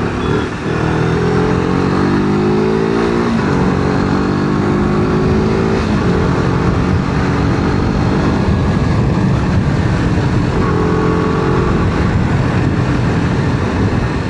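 Motorcycle engine accelerating through the gears: its pitch climbs for a few seconds, drops at each shift, and climbs again, over wind and road noise.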